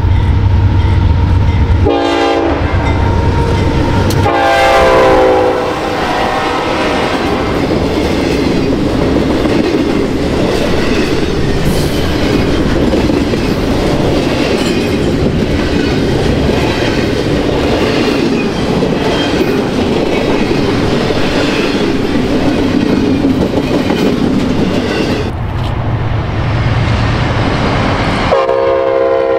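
A diesel freight train going by. The locomotive horn sounds in three blasts over a heavy engine rumble, then the cars roll past with wheels clattering on the rail joints. Near the end a locomotive's engine rumbles again and the horn sounds once more.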